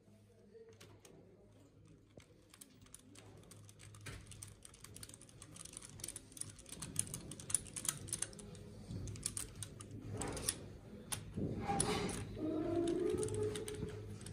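Rapid runs of small metallic clicks from a hand tool turning a fitting in a glow plug hole of a Mercedes-Benz OM642 3.0 turbodiesel engine, part of a cold compression test. The clicks grow busier and louder after the first few seconds, with handling and rustling noise near the end.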